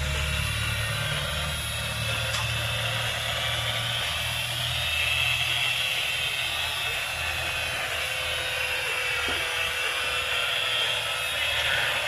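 Handheld electric power tool running steadily on lumber, a high wavering whine over a low hum.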